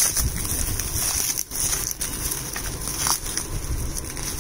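Gift packaging crinkling and rustling as it is handled during unwrapping, with a few sharp clicks.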